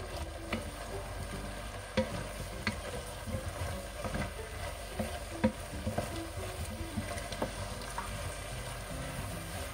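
Browned stewing beef, carrots, garlic and flour sizzling in a pan while being stirred, with irregular scrapes and knocks of the utensil against the pan. The flour is being cooked out before the stock goes in for the gravy.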